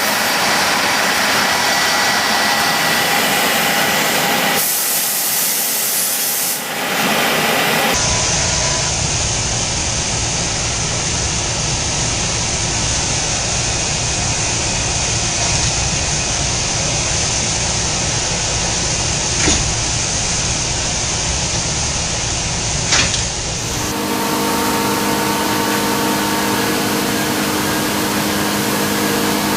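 Automated machining cell running: a steady hiss like coolant spray over machine hum, changing abruptly a few times, with a deep rumble in the middle stretch, two short clicks and a steady mechanical hum near the end.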